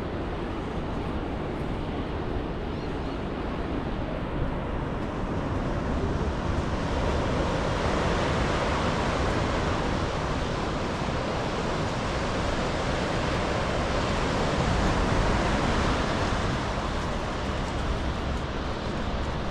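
Steady rush of ocean surf breaking on a beach, swelling a little through the middle.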